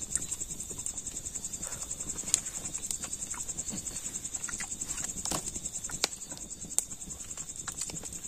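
Crickets chirping in a steady, fast-pulsing high trill, with a few sharp clicks scattered through it.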